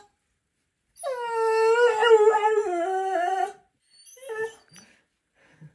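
A dog vocalizing: one long, wavering call with a slight fall in pitch over about two and a half seconds, then a short second call about four seconds in.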